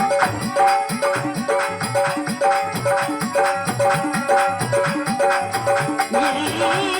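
Instrumental interlude of a Marwari bhajan: a hand drum plays steady bass strokes that bend in pitch, under a repeating two-note melodic figure and jingling percussion. About six seconds in, a sustained voice with vibrato comes in over the music.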